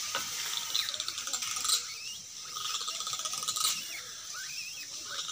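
A monkey grinding its teeth hard, a rapid rasping run of clicks like a ratchet, an angry threat sound. Birds chirp in the background.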